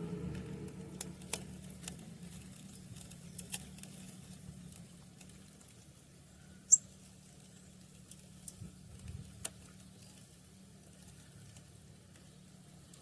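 Scattered small clicks and taps over a faint low steady hum, with one sharper click about seven seconds in.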